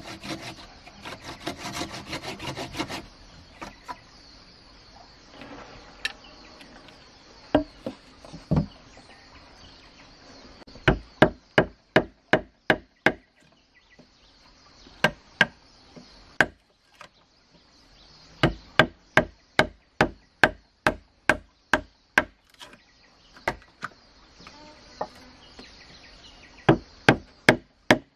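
Hand saw cutting into a wooden log post in quick strokes for the first few seconds. Then a chisel is struck into the wood in runs of sharp knocks, about three a second, chipping out the notch.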